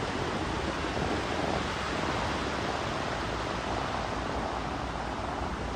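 Ocean surf breaking and washing up the beach: a steady rushing noise with no clear individual crashes.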